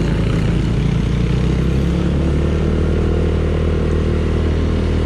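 Honda Click 125 scooter's single-cylinder four-stroke engine running steadily through an aftermarket Exos X6 exhaust pipe, a moderately loud note that is within the legal noise limit.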